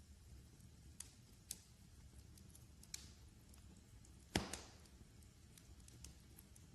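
Wood fire crackling softly over a low rumble, with sparse small pops and one loud crack about four seconds in.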